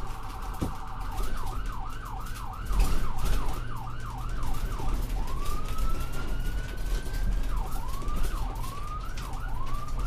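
American ambulance electronic siren running through its modes: a steady blaring tone at first, then a fast yelp of about two and a half sweeps a second, a slow rising wail about five seconds in, and the fast yelp again. The low rumble of the moving vehicle runs underneath.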